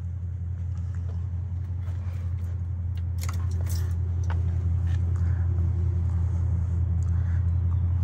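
Steady low hum from the Box Chevy's starter motor, stuck engaged with the flexplate after cranking instead of disengaging, drawing enough current to dim the lights. It slowly grows louder, with a few faint clicks partway through.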